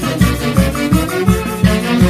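A brass band with saxophones, a bass drum and timbales playing a lively tune, the bass drum marking a steady beat about three times a second.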